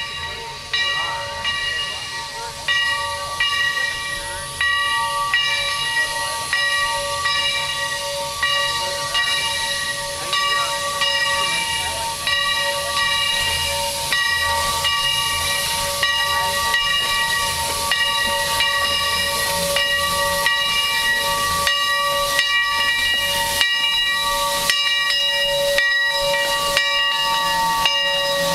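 A steam locomotive's bell ringing steadily, about one stroke a second, as the replica Central Pacific 4-4-0 Leviathan arrives, with steam hissing throughout. The hiss grows louder and steadier in the second half as the engine draws close.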